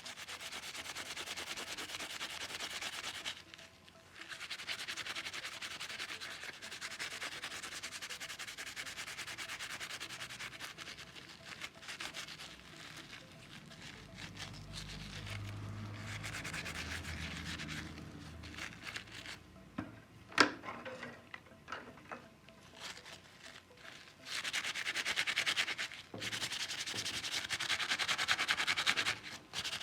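Sandpaper rubbing back and forth on a small diecast model car's metal body, in long stretches with short pauses, and a single sharp click about twenty seconds in.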